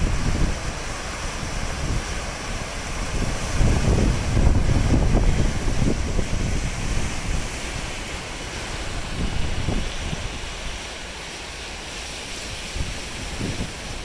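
Big lake waves breaking and washing over a rocky shore, with strong wind buffeting the microphone in gusts. The gusts are heaviest about four seconds in and ease off in the last few seconds.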